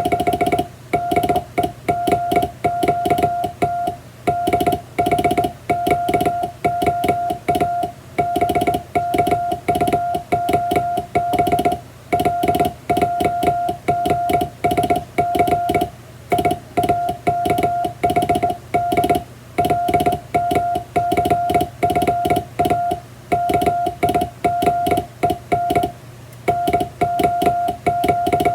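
English Morse code sent by hand on a vertical straight key: a steady sidetone beeping on and off in dots and dashes, grouped with short pauses, and a faint click at each stroke of the key.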